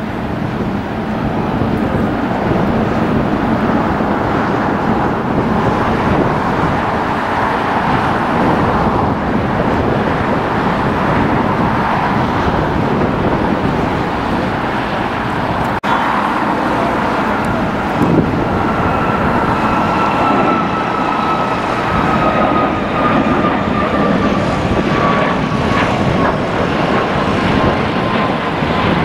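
Jet airliner engines at takeoff power: a loud, steady roar. After a brief break about halfway, a second jet climbs out, its engine whine slowly falling in pitch.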